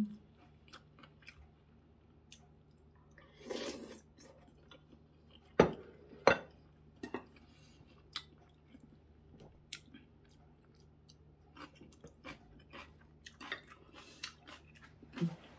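Close-up chewing and wet mouth clicks of a person eating, with a short rustling noise about three and a half seconds in and two sharp knocks about half a second apart near the middle.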